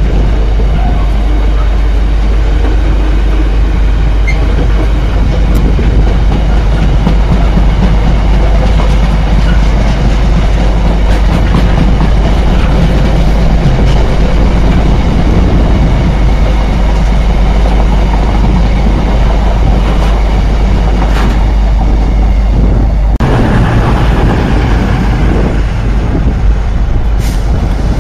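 Loaded container wagons of a freight train rolling past close by: a loud, steady rumble and clatter of steel wheels on the rails. About 23 seconds in the rumble changes character, and by the end a Freightliner Class 66 diesel locomotive is drawing in.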